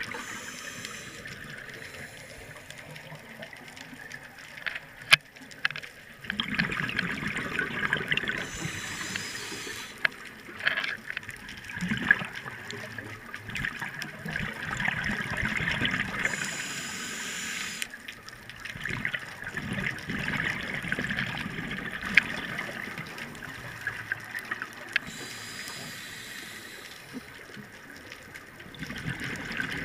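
Scuba diver breathing through a regulator underwater. Each breath is a short hiss on the inhale, then a long gurgle of exhaust bubbles, about four breaths in all.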